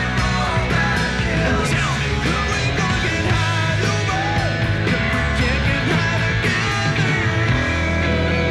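Rock band playing live: electric guitars over a steady drum beat, with a male lead vocal sung into the microphone.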